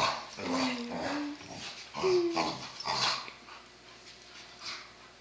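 Two dogs play-fighting, growling and giving short whines, busiest in the first three seconds and then quieter.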